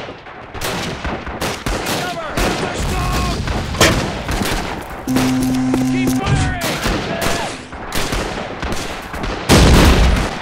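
Battle sound effects: dense rifle and machine-gun fire, shot after shot. A loud heavy blast comes near the end.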